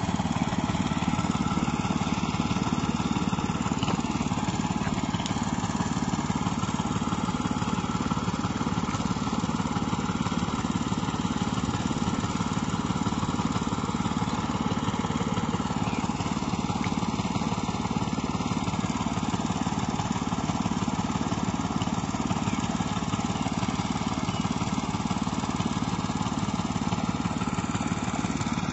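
Small engine of a water pump running steadily at one constant speed, drawing water out of the pond through its hose.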